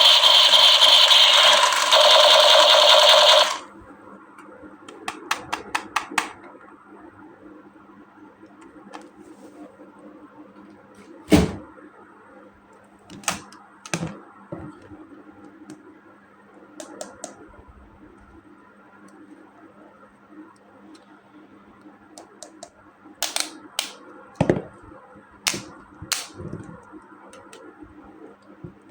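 Plastic toys and packaging being handled. A loud, steady hissing noise cuts off suddenly after about three and a half seconds. Then come scattered light clicks and taps, with a few sharper knocks about eleven seconds in and again near the end.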